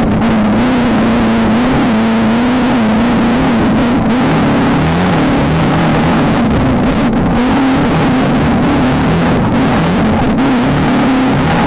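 Desert off-road race car's engine running hard and loud, its pitch wavering up and down with the throttle over a constant rough rumble.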